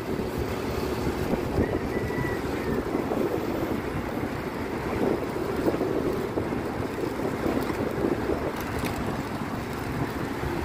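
Steady wind buffeting the microphone over the low rumble of a motorcycle and its tyres on a concrete road, recorded while riding.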